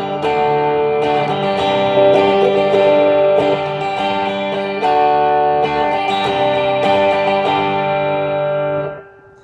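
Taylor T5z hybrid guitar, set to pickup position 4 (neck and bridge pickups in parallel), strummed in changing chords through a Roland Cube Street amp on its electric side, a little loud. The playing stops abruptly about nine seconds in.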